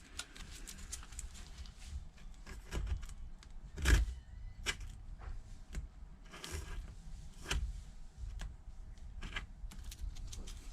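A hand tool scraping old adhesive off the aluminium housing of an iPad mini 2: irregular short scrapes and clicks, with a louder knock about four seconds in.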